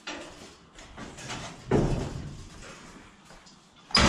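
Metal kennel gate being handled: rattles and knocks, with a fuller rattle about two seconds in and a sharp, ringing clank near the end.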